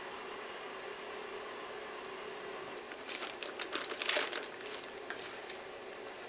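Plastic piping bag crinkling and rustling as macaron batter is scraped into it with a silicone spatula, in a cluster about three to four and a half seconds in, over a steady low room hum. A single click follows about five seconds in.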